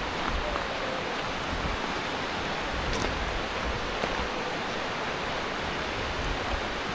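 Steady rush of a fast mountain river running over rocks and rapids, with a few faint ticks on top.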